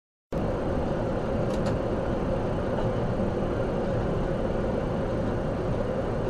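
Steady road and engine noise of a vehicle cruising at about 60 mph, heard from inside the vehicle, cutting in abruptly a moment in. Two faint ticks about a second and a half in.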